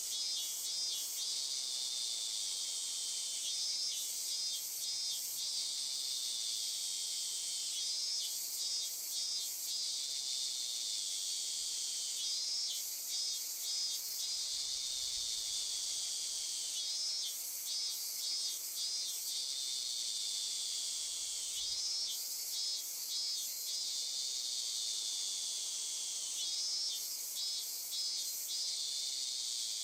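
Nature ambience of an insect chorus: a steady high-pitched buzz, with a short pulsed chirping trill of about three quick bursts recurring every four and a half seconds.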